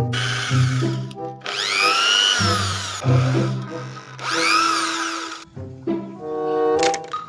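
Background music with three bursts of electric-drill-like whirring. The second and third bursts rise and then fall in pitch.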